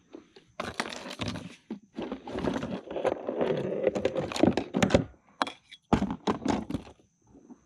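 A quick run of hard knocks and clatter with rustling on a plastic sit-on-top kayak as fishing gear is handled, busiest in the middle and ending in a few separate knocks.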